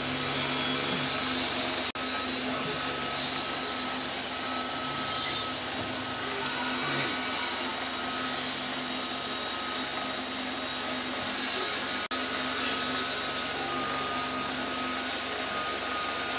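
Electric bubble machine's small fan motor running with a steady whir and a faint whine.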